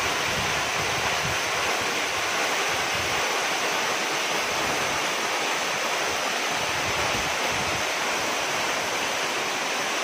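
Waterfall running: a steady, even rush of falling water.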